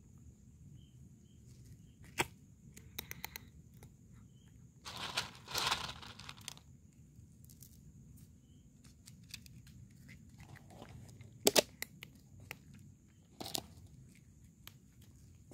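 A cat crunching dry kibble: scattered crisp crunches and clicks, the loudest a quick pair about eleven seconds in. A longer rustle about five seconds in.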